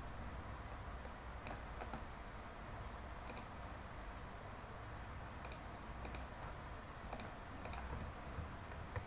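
Computer keyboard keys being pressed: about eight short, sharp clicks, scattered and sometimes in quick pairs, over a faint steady low room hum.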